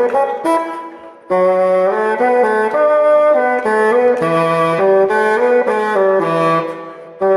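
Solo bassoon playing a melody: one phrase dies away about a second in, a new phrase starts a moment later and carries on in changing notes, then fades just before the end.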